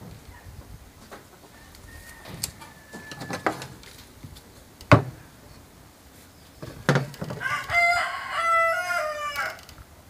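A rooster crows once, a stepped call about two seconds long, near the end. Before it, a few sharp knocks of wood and tools being handled on a workbench, the loudest about halfway through.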